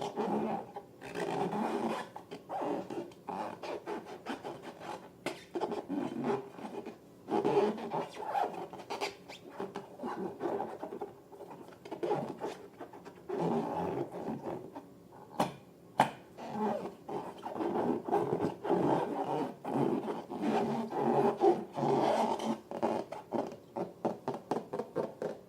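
Slime being squished and kneaded by hand: irregular wet, rubbing squelches in short bursts, with scattered sharp clicks.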